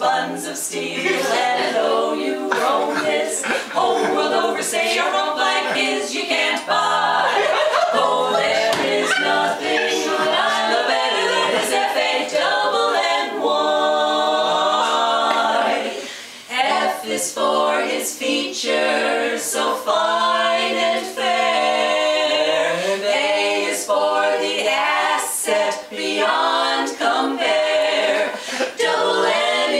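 Women's barbershop quartet singing a cappella, four voices in close harmony, with a short break about halfway through.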